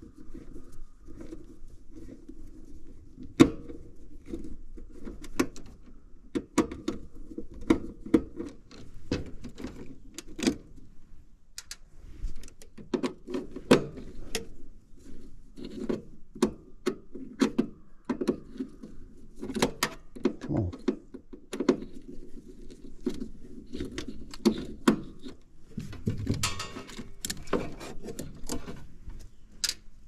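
Hands working wires and connectors in a heat pump's outdoor-unit control panel while swapping out the defrost board: scattered clicks and taps with rustling, and a longer spell of rustling near the end.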